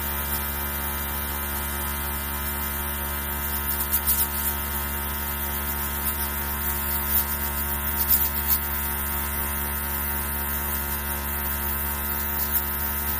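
Small airbrush compressor running, a steady electric hum with a faint hiss of air as the airbrush sprays food colour onto a cake. A few faint ticks come in around a third and two thirds of the way through.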